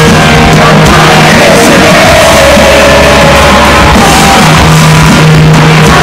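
Loud live band music from the concert's sound system, with a singer's voice and shouts from the crowd.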